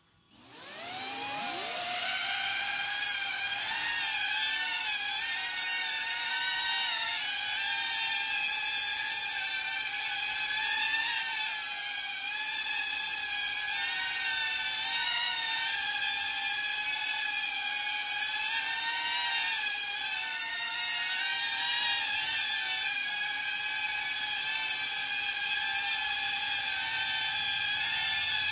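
Axisflying Blue Cat 35 cinewhoop FPV drone's motors and ducted propellers spinning up with a rising whine over the first two seconds, then hovering with a steady high propeller whine whose pitch wavers as the throttle is corrected.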